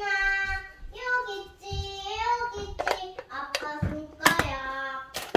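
A young child singing a melody in long, high, held notes. Several sharp knocks come in the second half, the loudest about four seconds in.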